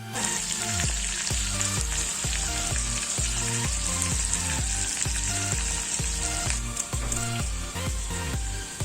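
Fish intestine frying in oil in a small kadhai, a steady high sizzle that starts just after the beginning, over background music with a steady bass beat.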